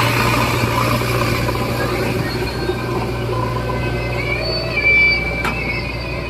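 JCB 3DX backhoe loader's diesel engine running steadily under work, with a brief louder surge and a sharp click about five seconds in.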